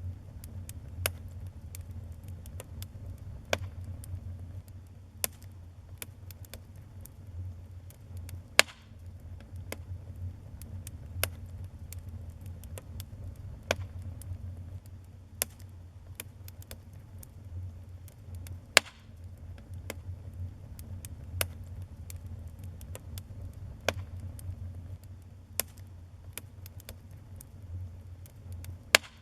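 Wood fire in a fireplace burning with a low steady rumble and irregular sharp crackles and pops, a few of them much louder than the rest.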